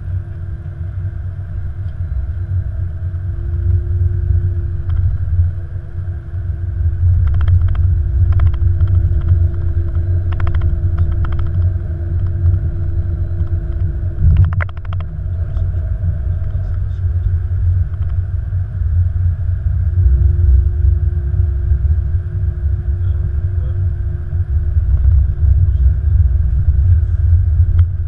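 Steady low rumble inside an Airbus A330-200's cockpit as the airliner taxis on the ground, with a constant hum and a few light clicks and knocks.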